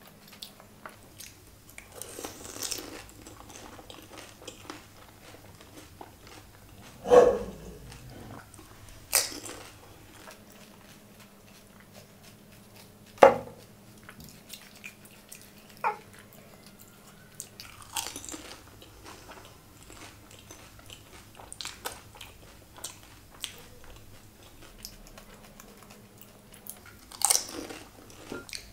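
Close-miked eating of pani puri (golgappe): crisp puri shells cracking between the teeth, with chewing and wet mouth sounds. A handful of sharp crunches stand out at irregular intervals.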